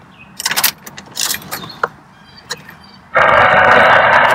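Car keys jingle and click, then about three seconds in the 2007 Ford Fusion is started with a sudden loud, steady noise that holds for over a second.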